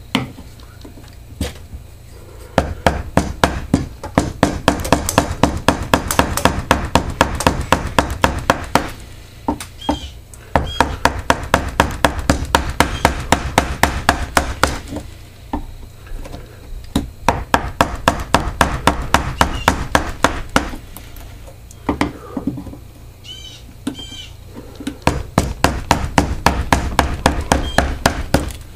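A carving gouge is driven into the bowl of an ash spoon blank by quick repeated strikes. It sounds as sharp wooden knocks, about four a second, in four runs of several seconds each with short pauses between.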